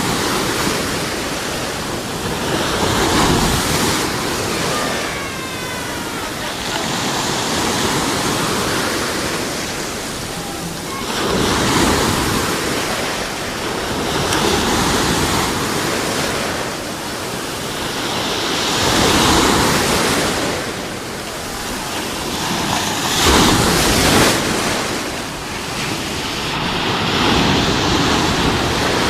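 Sea waves breaking and washing up a shore, the surf swelling and falling back every three to five seconds.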